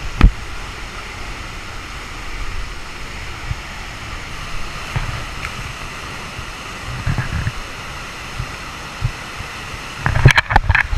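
Waterfall rushing steadily, with scattered low thumps and a cluster of sharp knocks near the end.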